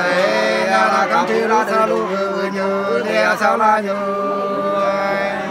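A man singing Nùng sli, an unaccompanied folk love-song, in long held notes that bend and slide between pitches.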